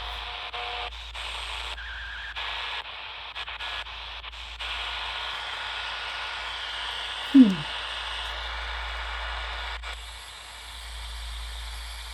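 HamGeek ATS200 portable receiver's speaker hissing with off-station static. The noise changes abruptly several times in the first few seconds as settings or frequencies are stepped, and a short falling tone sounds about seven seconds in.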